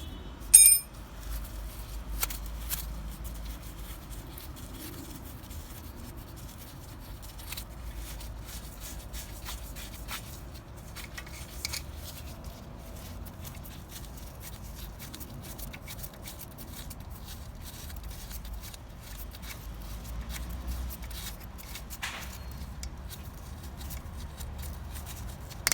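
Hand ratchet clicking in quick, irregular runs of small ticks as the 10 mm bolts on a Vauxhall Astra J front brake caliper are undone. A single sharp metallic clank rings out about half a second in.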